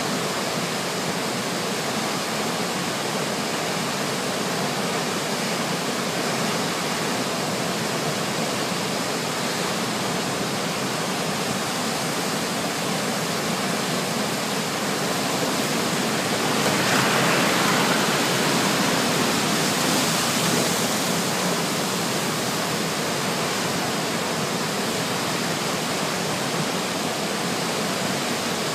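Waterfall in full flood, a heavy torrent falling down a rock face: a steady rushing noise of falling water that grows a little louder for a few seconds past the middle.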